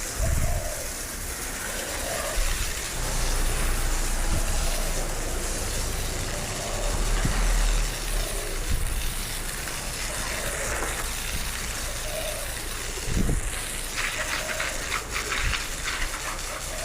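Water spraying and splashing in a steady hiss, with a low rumble underneath.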